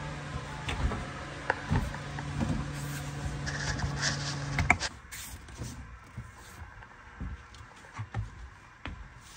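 A steady motor hum that cuts off suddenly about five seconds in, with scattered light knocks and clicks that go on after it stops.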